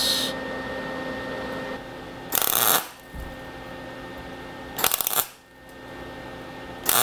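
MIG welder with solid wire and argon-CO2 gas welding a steel washer onto a broken screw stud, in two short bursts of about half a second each, about two and a half and five seconds in. A steady hum runs between the bursts.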